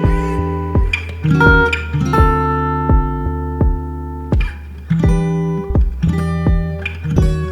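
Background music: plucked acoustic guitar notes over a sustained bass line.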